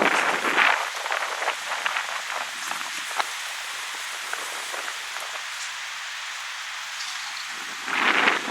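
Wind blowing through birch trees: a steady hiss with a louder gust at the start and another near the end, and light scattered ticks and crackles in between.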